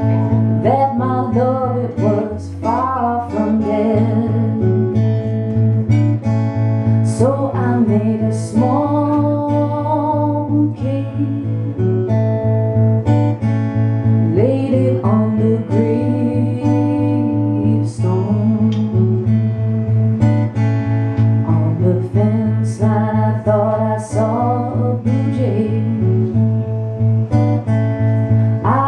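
A woman singing with her own acoustic guitar accompaniment, strummed in a steady rhythm.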